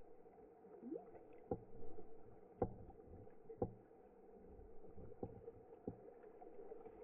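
Pool water sloshing and lapping against a camera at the water's surface, over a steady hum. About five sharp knocks and splashes are spread through it, and there is a short rising squeak about a second in.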